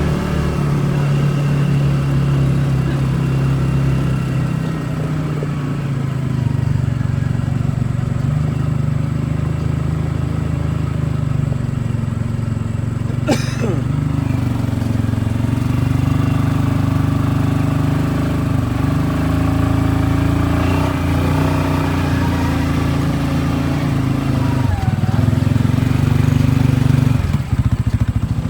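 CFMoto ATV engine running steadily while the four-wheeler is ridden, its pitch shifting a few times with changes in speed. A brief, sharp falling sound cuts in about halfway through.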